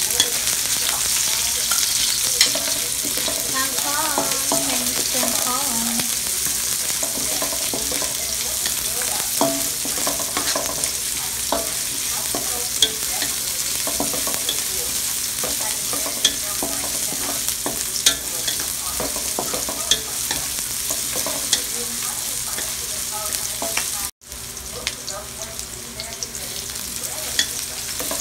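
Minced garlic and sliced red onion sizzling in hot oil in a metal wok, stirred steadily with a wooden spatula that scrapes and taps against the pan. The sound drops out for an instant near the end.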